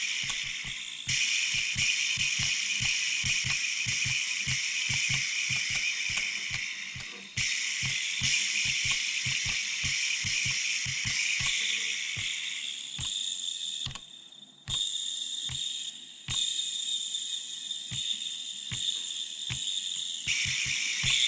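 Salvaged tape-deck mechanism being worked by hand: a steady high whirring hiss that stops and starts abruptly several times as its controls are operated, over many irregular clicks and rattles from the transport's levers and gears.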